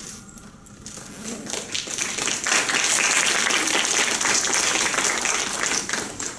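Audience applauding, building up over the first couple of seconds and stopping abruptly at the end.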